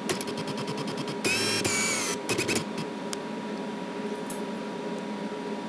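Sleeping Alaskan husky whining in her sleep: a rapid run of light clicks, about a dozen a second, then a high, wavering whine of under a second, then a few more clicks.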